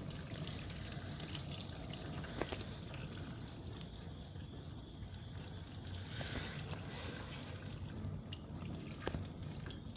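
Hot engine oil draining out of a 650 side-by-side's engine, a faint steady trickle and drip, with a couple of small clicks.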